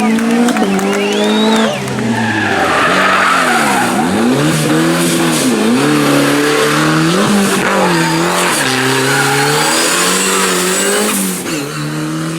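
Rally car engine revving hard, its pitch climbing and dropping repeatedly through gear changes and throttle lifts, with tyres squealing and scrabbling on the road surface about two seconds in.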